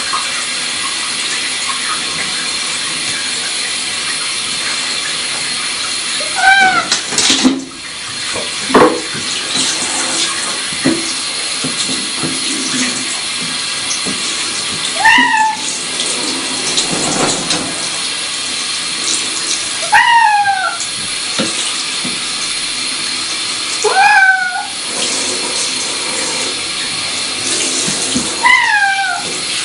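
A cat meowing about five times, loud drawn-out meows that fall in pitch, spaced a few seconds apart, while being washed under a running handheld shower, whose spray makes a steady hiss throughout. A few short knocks come between the first and second meows.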